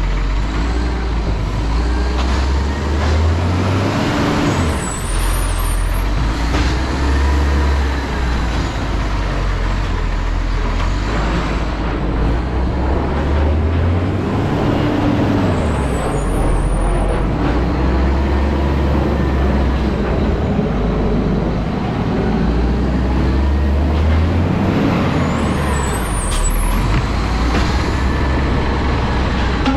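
Garbage truck's diesel engine revving up and settling back three times, about every 11 seconds, with a short air-brake hiss in each cycle.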